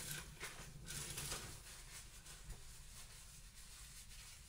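Faint rustling and light knocks of kitchen things being handled, mostly in the first second and a half, then only quiet room tone.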